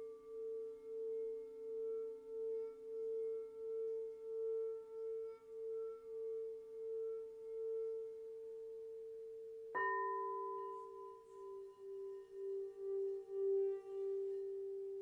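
Crystal singing bowls ringing: a long sustained tone that swells and fades in a slow pulsing wobble, then about ten seconds in a slightly lower bowl is struck and rings on, wavering, with fainter higher overtones above it.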